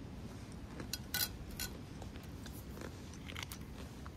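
Someone biting and chewing a crisp unsalted wheat cracker spread with apple jam: a few sharp crunches about a second in, the loudest of them, and more softer crunches around three seconds.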